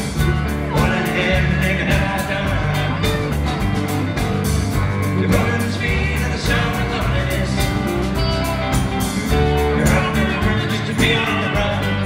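Live rock band playing: electric guitar, keyboards and drums with cymbals, at a steady full volume.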